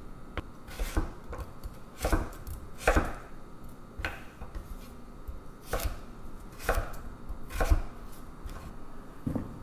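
Kitchen knife slicing carrot on a wooden cutting board: about nine separate chops, roughly one a second and unevenly spaced, each a sharp knock of the blade against the board.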